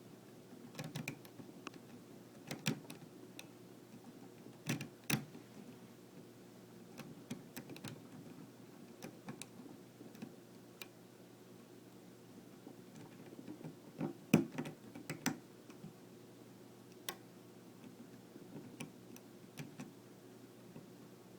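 Scattered light clicks and taps of lock-picking tools and code setting keys working in a Medeco Biaxial M3 lock, with a louder cluster of clicks about fourteen seconds in, over a faint steady hum.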